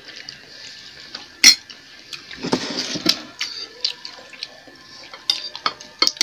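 Metal spoon and fork clinking and scraping against ceramic bowls during eating, in scattered sharp clinks with the loudest about a second and a half in and a busier stretch of scraping and clinks around the middle.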